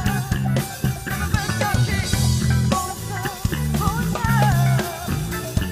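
Live pop-rock band playing: a woman sings a melody over electric guitar and a drum kit beat.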